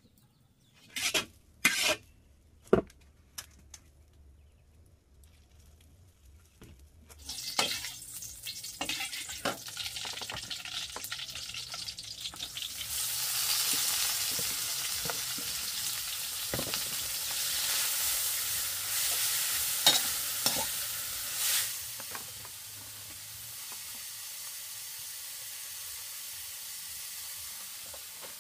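Food frying in a hot pan: a few sharp knocks in the first three seconds, then a sizzle starts about seven seconds in, is loudest around the middle and settles to a quieter steady sizzle with occasional clicks.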